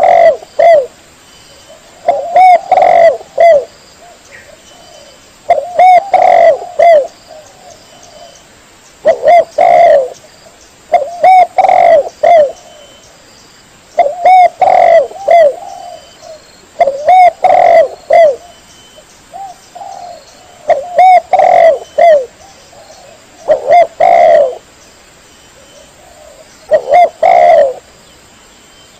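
Spotted dove (tekukur) cooing: loud phrases of several short coos, one phrase every three seconds or so, from a call recording of the kind played to lure doves when hunting.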